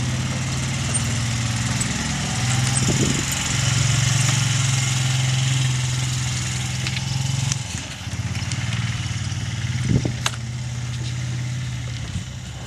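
A small vehicle engine running nearby with a steady low drone that swells in the middle and dips briefly about eight seconds in. A sharp knock comes about ten seconds in, as a fibreglass spreader is fitted.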